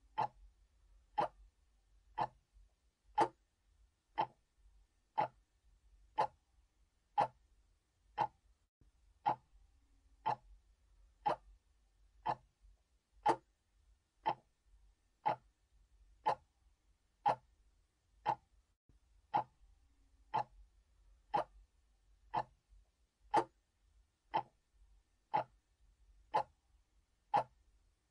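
Mechanical clock ticking steadily, about one sharp tick a second, evenly spaced.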